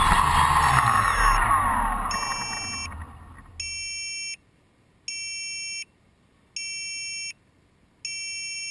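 A multirotor drone's motors spin down on the ground, their whine sliding down in pitch and fading out over about three seconds. Then a shrill electronic beep sounds four times, each about three-quarters of a second long and about one and a half seconds apart.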